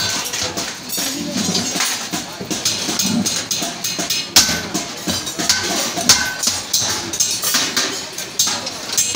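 Small hammer striking rivets on a galvanized steel bucket, a quick uneven run of sharp metallic knocks, some leaving a short ring. Music and voices run underneath.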